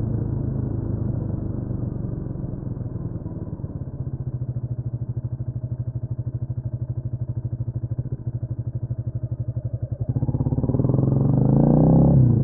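Honda CMX250 Rebel motorcycle engine settling into an even, putting idle, then revving up about ten seconds in, pitch rising as it accelerates and loudest near the end.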